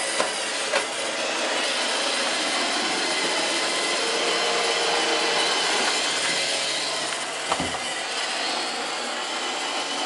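iRobot Roomba 620 robot vacuum running on carpet: a steady mechanical whir of its vacuum motor and brushes with a few thin whining tones through it. A few brief knocks break it, twice just after the start and once about three-quarters of the way through.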